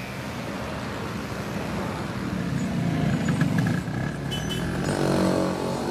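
Busy city street traffic: engines of passing vehicles over a steady din, with a vehicle going by close about three seconds in and another engine note swelling near the end.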